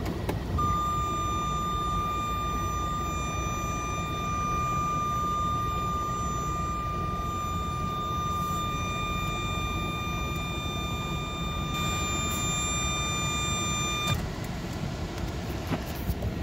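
A vehicle's parking-sensor warning sounding one continuous high beep while reversing close to an obstacle; it stops suddenly about 14 seconds in. Under it the vehicle's engine and cabin give a steady low rumble.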